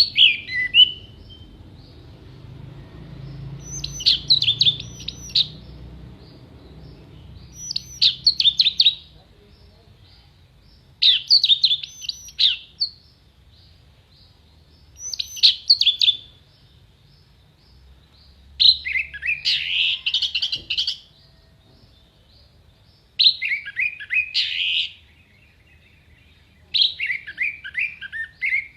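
Orange-headed thrush (anis merah) singing: eight short phrases of rapid, sharp whistled notes, one every three to four seconds, the last few longer and lower.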